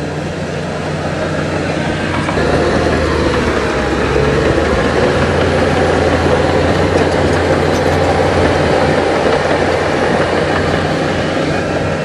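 Heavy diesel engine of earthmoving machinery running steadily, growing louder about two seconds in and staying up.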